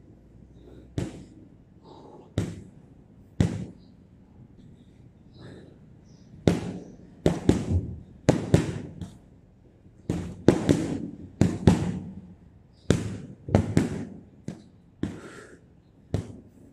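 Boxing gloves punching a hanging heavy bag. Three single punches about a second apart, then quick combinations of two and three punches in a row from about six seconds in.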